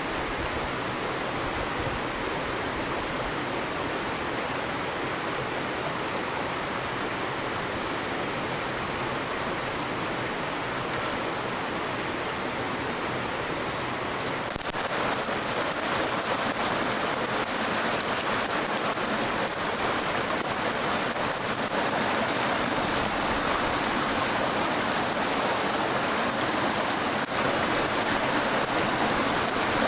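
Mountain stream rushing over rocks in a steady, even noise, louder from about halfway through.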